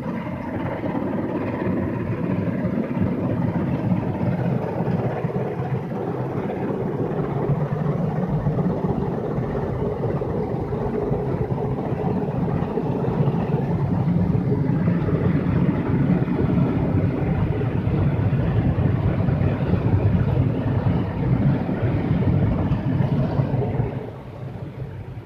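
Automatic car wash machinery working over the car, heard from inside the cabin: a steady loud mix of spinning brushes and water against the body. It drops away suddenly about 24 seconds in.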